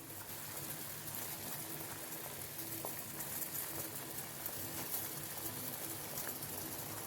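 A pot of betel-leaf herbal decoction bubbling steadily at a boil, a fine crackling fizz of bubbles; it is being boiled down to reduce.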